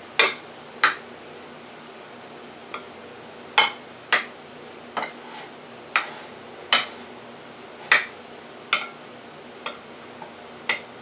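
A spoon clinking and knocking against the side of a mixing bowl while stirring sour cream into cooked rotini pasta: about a dozen sharp, irregular knocks, roughly one a second.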